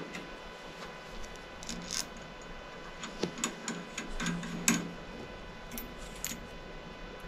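Metal spacers clicking and clinking as they are slid by hand onto a go-kart's stub axle: a scatter of light ticks and small knocks, busiest around the middle.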